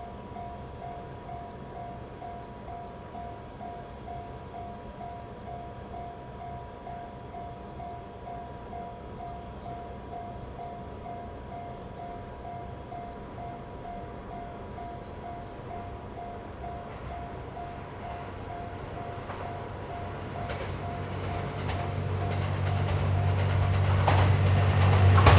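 Japanese level-crossing warning bell dinging steadily and evenly throughout. In the last few seconds the 87-series Twilight Express Mizukaze diesel-hybrid train approaches, its engine rumble and wheel clicks swelling to the loudest point at the end.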